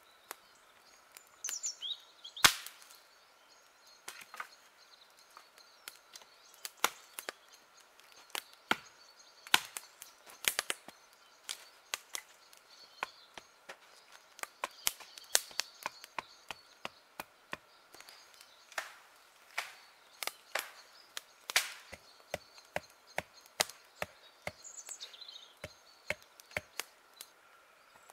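Axe chopping firewood on a wooden block: a long run of sharp wooden knocks at an irregular pace.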